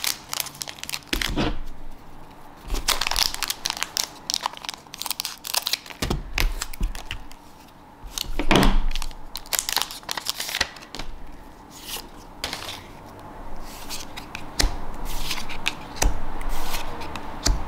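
Foil trading-card booster pack crinkling and being torn open by hand, in irregular crackles and rips, with the cards inside being handled.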